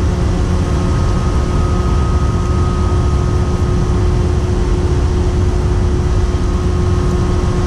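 Steady machinery hum on a ship's deck, with wind rumbling on the microphone. A higher steady whine joins about a second in.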